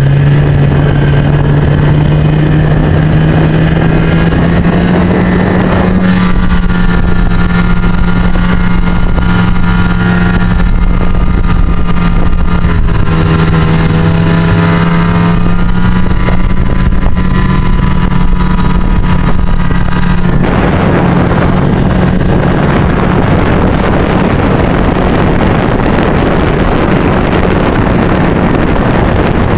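Snowmobile engine running at a steady pitch during the ride, with wind rushing over the microphone; about two-thirds of the way through, wind noise grows and covers much of the engine.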